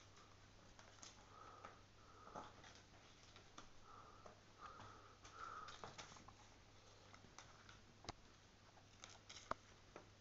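Faint, scattered taps and clicks of a kitten batting and clawing a small toy on a laminate floor, the sharpest click near the end; otherwise near silence.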